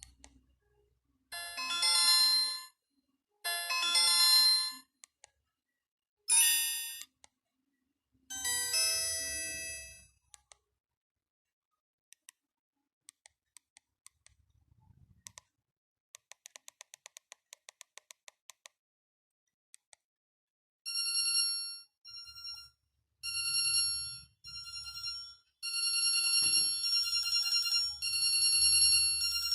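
Alcatel One Touch 1013D ringtones and alert tones played one after another: four short high electronic jingles in the first ten seconds, then near quiet with faint clicks, then from about two-thirds of the way in a repeating high-pitched ringtone melody.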